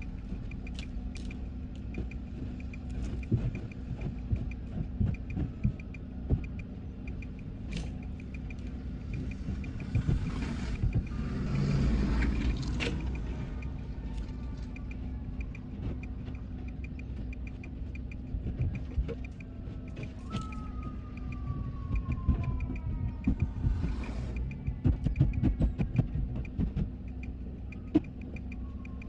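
Steady engine and road noise inside a moving car on a snow-covered road, with scattered small knocks. The noise swells about twelve seconds in, and a short falling whine follows around twenty seconds in.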